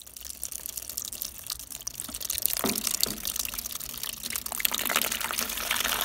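Water running from an outdoor tap into a plastic basin, splashing and trickling over cut aloe vera leaves as they are rinsed.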